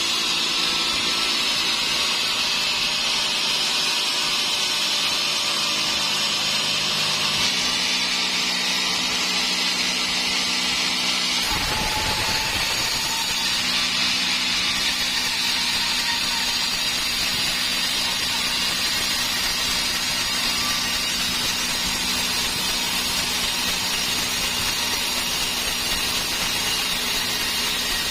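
Sawmill saw running as it cuts dry teak: a steady mechanical whine and rush whose tone shifts about seven seconds in and again about eleven seconds in.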